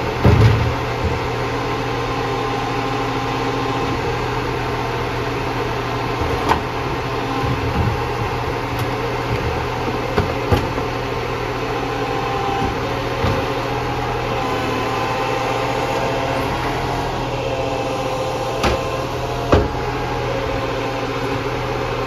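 Iveco side-loader garbage truck idling steadily, a constant engine hum with a few steady tones above it. A handful of short, sharp knocks of plastic wheelie bins being handled are spread through it.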